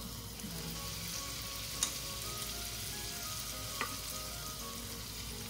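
Pancake batter sizzling in a hot buttered frying pan: a steady hiss, with two light clicks about two and four seconds in.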